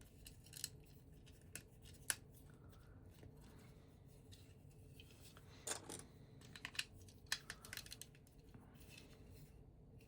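Plastic LEGO pieces clicking and tapping as they are handled and pressed together during a build: scattered light clicks, busiest around six to eight seconds in.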